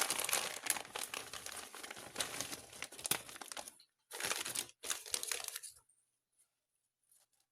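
Crinkling and rustling of something being handled. It runs in one long stretch of almost four seconds, then comes in two short spells and stops about six seconds in, leaving only a few faint ticks.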